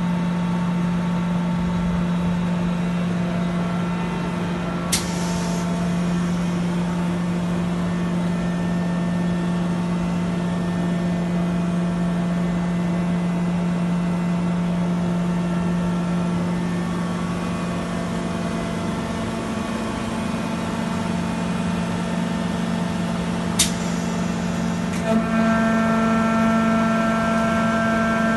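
Packing press for wood sawdust and chips running with a steady machine hum, broken by two sharp clicks. Near the end a further click comes and the hum steps up a little in pitch and level.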